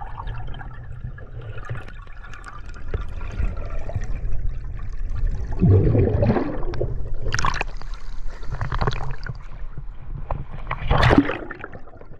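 Water gurgling and rushing as heard underwater, with several louder swells of bubbling and churning, about six, seven and a half and eleven seconds in, as the diver's exhaled bubbles stream past and the surge stirs the water.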